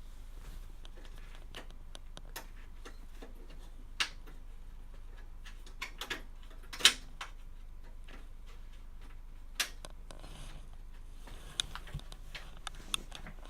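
Irregular light clicks and taps of cables and small plastic parts being handled inside a computer case, with one sharper click about halfway through.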